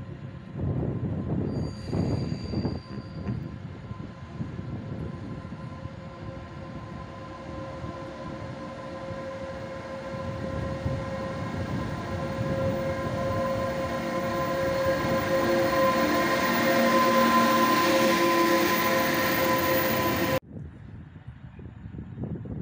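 Electric locomotive 111Ed-014, a Newag Griffin, running through the station with a train of wagons. Its rumble and a steady whine grow louder as it approaches, then cut off abruptly about twenty seconds in.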